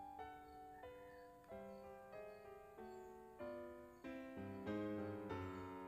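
Soft background piano music: a slow run of single notes, each struck and fading.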